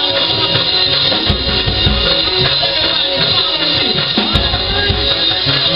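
Loud live church band music with a drum kit: kick drum and cymbals under held keyboard or organ chords.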